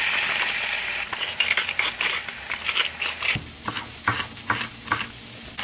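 Pork chop sizzling in an oiled cast-iron skillet, a steady hiss. About three seconds in, a knife chops a pepper on a wooden cutting board, about four sharp cuts a second, over a fainter sizzle.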